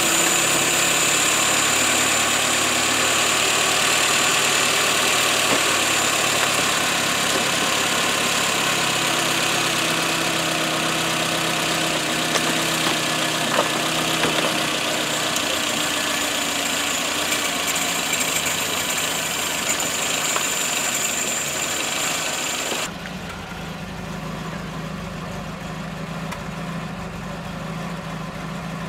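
Car engine idling under a loud, steady, high hiss. About three-quarters of the way through, the hiss cuts off suddenly, leaving a quieter low hum.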